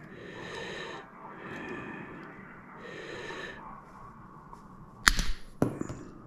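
Heavy breathing close to the microphone, in slow repeated breaths. Near the end come two sharp clicks about half a second apart, from small plastic and spring parts of a joystick being worked on.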